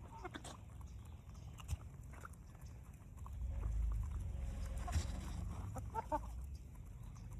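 Backyard chickens and turkeys giving soft, scattered clucks and calls, with a quick run of calls about six seconds in. A low rumble on the microphone swells through the middle.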